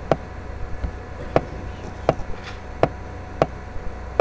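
Five sharp ticks at uneven intervals, roughly one every second or less, over a steady low hum.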